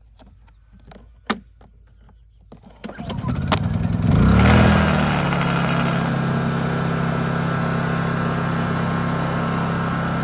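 Honda EU2200i inverter generator's small single-cylinder four-stroke engine being started: a few light clicks, then it catches about three seconds in, revs up briefly and settles into steady, even running.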